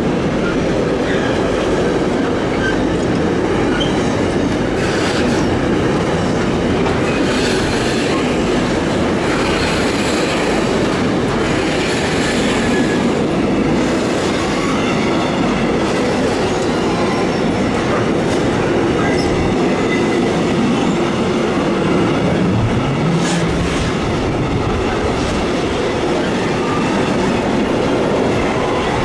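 Container freight train rolling steadily past, its wagon wheels clattering over the rails, with a faint wheel squeal now and then.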